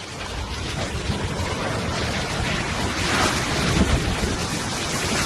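Low rumbling noise with scattered knocks, growing louder to a peak about three to four seconds in: a building shaking in an earthquake.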